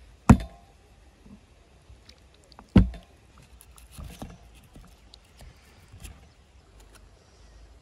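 Two loud knocks about two and a half seconds apart, each with a short ring, then quieter scraping strokes of a serrated hand saw starting to cut into a raw, skinned sheep's head.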